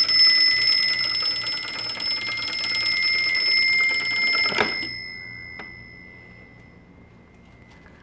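Homemade anti-theft door alarm: a 9-volt DC motor spins a striker against a bell dome, ringing it in a rapid, continuous clatter. A little over halfway through there is a knock as the door is shut, the motor and striking stop, and the bell's tone rings on and fades.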